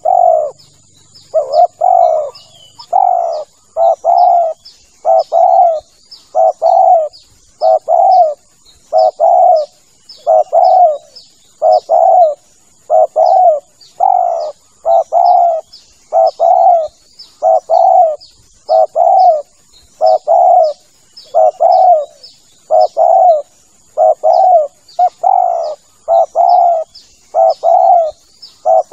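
Spotted dove (tekukur) cooing over and over in an even, unbroken run of low notes, about one a second: a recorded lure call for drawing in wild doves.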